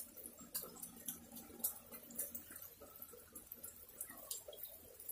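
Light rain falling, with scattered drips ticking close by at irregular moments. The rain is still coming down but has eased off from a heavier fall.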